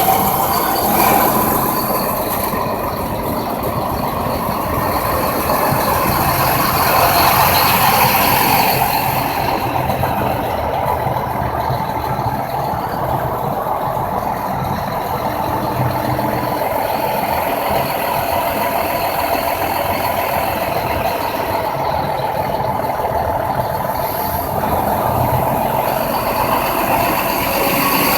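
Heavy truck traffic on an interstate highway: steady, loud engine and road noise from big rigs, with a high hiss that dies down partway through and comes back near the end.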